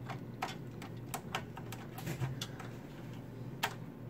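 Small irregular plastic clicks and taps of a USB 3 front-panel header plug being lined up and pushed onto the motherboard's header pins, with one louder click about three and a half seconds in.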